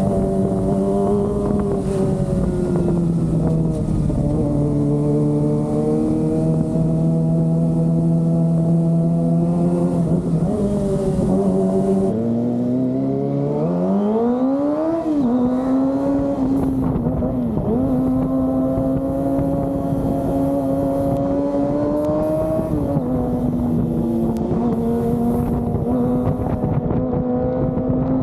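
Kawasaki ZX-25R's 250 cc inline-four engine running under way at steady revs. About twelve seconds in the note dips, then climbs sharply for a couple of seconds before settling into a steady, higher note.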